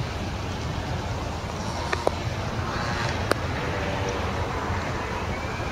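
Steady road-traffic rumble, with a few short sharp knocks about two seconds in and again just after three seconds.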